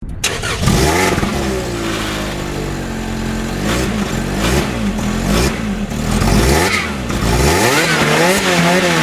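Lotus Exige's four-cylinder engine starting up, its idle settling, then revved in a series of throttle blips with one longer rev about six to seven seconds in.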